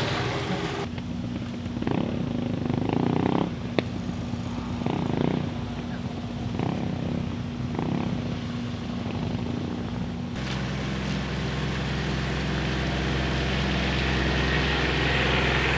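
Motorcycle engines running, with several short revs about a second apart, then a steadier engine drone that grows a little louder near the end.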